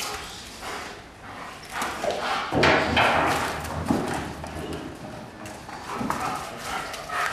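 A German shepherd scrambling through a heap of rubber tires after a ball: tires thumping and shifting, with paws scuffling on concrete. The loudest scuffle comes about halfway through.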